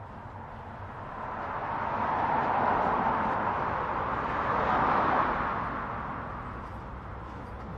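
Class 70 diesel-electric freight locomotive passing slowly directly below. Its running noise swells to a peak between about two and five seconds in, then fades as it draws away.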